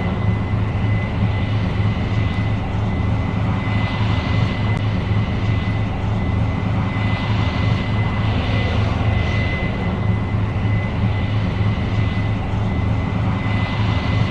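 Case IH 8230 Axial-Flow combine running steadily while harvesting: a deep, even diesel drone with a thin, steady high whine over it, and a rushing hiss that swells and fades several times.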